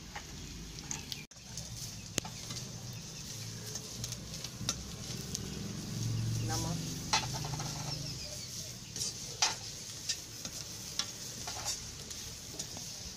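Poha being stirred in a kadhai with a long steel spatula, the spatula scraping and clicking against the pan at irregular moments over a steady soft sizzle of the food frying.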